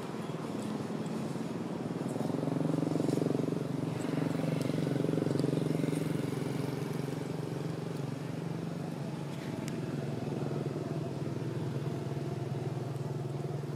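Motorbike engine running steadily with a low drone, growing louder about two seconds in and holding, with a few faint clicks over it.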